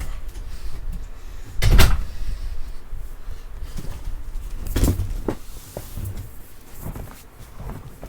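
Knocks and thumps of things being moved about in a room: two louder bangs about two and five seconds in, with lighter knocks after them.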